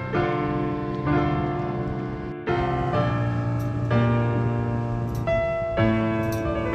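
Background music: an instrumental keyboard passage of sustained chords that change about every second, with a short break about two and a half seconds in.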